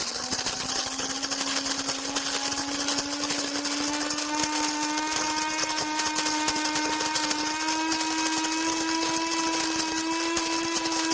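Cuisinart Supreme Grind automatic burr mill grinding coffee beans on a medium setting. The electric motor runs with a steady hum that creeps slightly up in pitch, over a gritty crackle of beans being crushed between the burrs.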